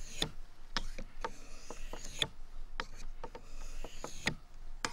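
Knife blade being pushed in slicing strokes across a wet 800-grit Japanese water stone, the coarsest of three sharpening stones: a short scraping rasp with a light click about twice a second.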